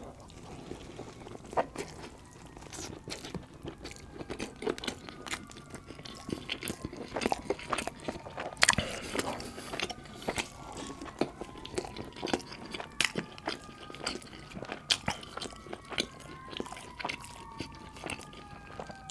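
Close-miked chewing and wet mouth sounds of someone eating naan dipped in butter chicken sauce, with many sharp smacks and crunches. From about halfway through, sirens wail in the background, several slowly falling and rising tones overlapping.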